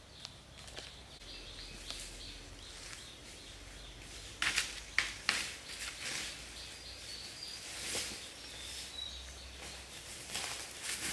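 Footsteps crunching and rustling through dry leaf litter and undergrowth, a few sharp crackles about halfway through and more near the end, with faint bird chirps in the background.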